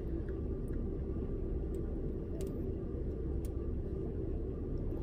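Steady low rumble inside a closed minivan cabin, with a few faint clicks.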